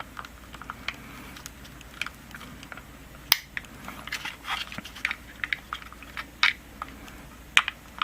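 Small plastic clicks and crackles from working the locking tabs and pins of a 2003 Ford F-150 headlight switch housing to free its circuit board, with a few sharper snaps among them.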